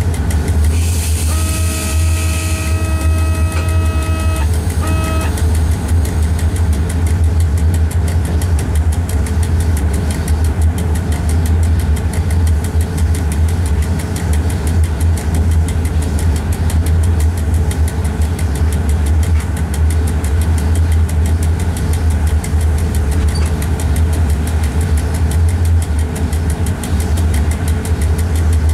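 A train running, heard from inside the driver's cab as a steady low rumble. The horn sounds one long note about a second in, then gives a short second toot.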